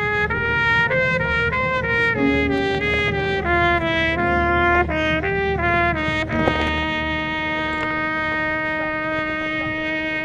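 Marching band brass playing a melody note by note, then settling into one long held chord about six seconds in.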